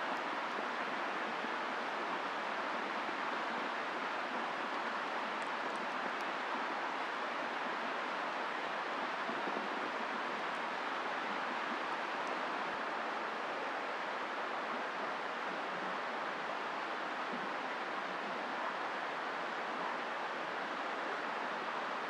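Steady light rain falling on the woods, an even rushing hiss that holds one level throughout, with a few faint crackles from the campfire.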